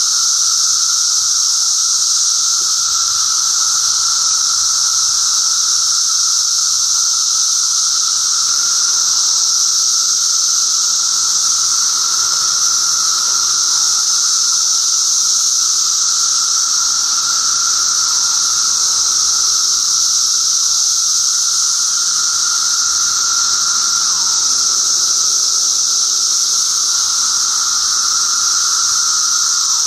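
Dense chorus of Brood XIII seventeen-year periodical cicadas: a loud, steady high-pitched buzz with a lower droning tone beneath it.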